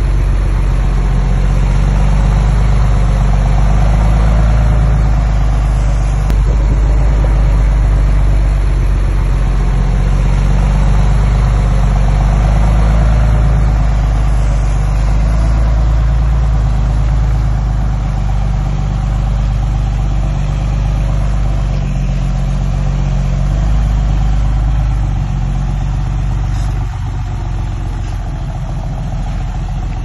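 Heavy diesel engine of earthmoving machinery running steadily, easing off a little near the end.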